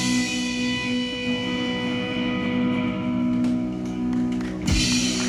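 Live rock band with electric guitars letting a held chord ring out to end a song, with one last sharp full-band hit near the end.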